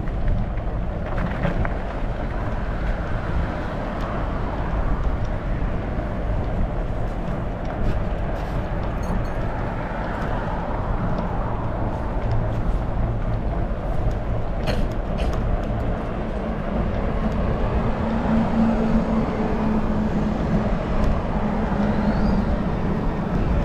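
Steady low rumble of riding a Trek Farley 9.6 fat bike: wind on the microphone and road noise. A low steady hum joins about eighteen seconds in.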